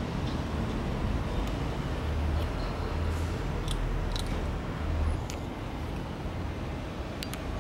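Steady low outdoor background rumble, with a few faint high clicks and short chirps scattered through the middle and near the end.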